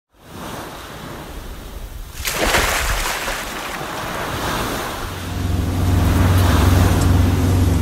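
Ocean waves washing, with a wave rushing in and breaking about two seconds in. A low steady hum joins from about five seconds.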